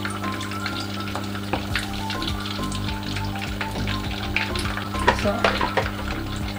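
Spring rolls deep-frying in a saucepan of hot extra light olive oil, sizzling with many small pops and crackles as wooden utensils turn them in the oil. A steady low hum runs underneath.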